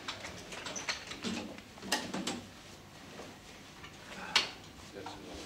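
Scattered light knocks and handling noises, with one sharp click about four seconds in.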